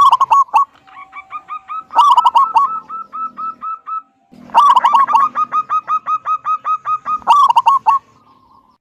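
Zebra dove calling: three runs of rapid, repeated falling coo notes, several a second, with short pauses between them.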